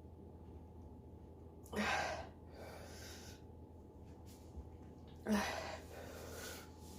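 A person's two sharp, noisy intakes of breath, about three and a half seconds apart, each followed by a softer breath.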